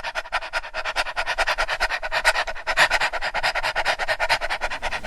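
A dog panting rapidly in a fast, even rhythm of short breaths.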